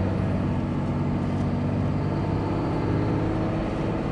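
Cummins 5.9 inline-six turbo-diesel in a Dodge Ram running steadily at part throttle while driving.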